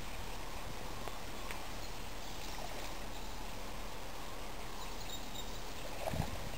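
Steady outdoor hiss at a lake shore, with a faint high chirp about five seconds in and a single low thump near the end.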